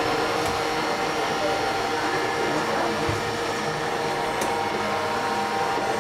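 Robot vacuum cleaner running as it drives across a hard tiled floor: a steady motor whir.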